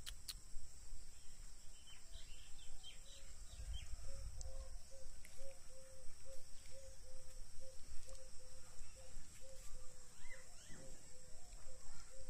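Outdoor pond ambience: small birds chirping now and then over a steady high insect drone. A short low note repeats about twice a second from a couple of seconds in.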